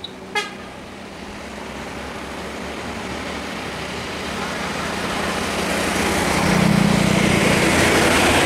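Lanka Ashok Leyland bus's diesel engine running as the bus approaches, growing steadily louder as it passes close by. A brief high beep sounds about half a second in.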